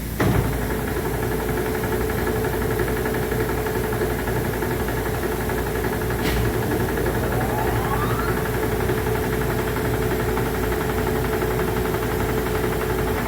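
Blanchard No.18 rotary surface grinder switched on with a clunk, then running with a steady electric-motor hum and a held whine. About six seconds in there is a click and a second whine that rises in pitch for a couple of seconds as something spins up.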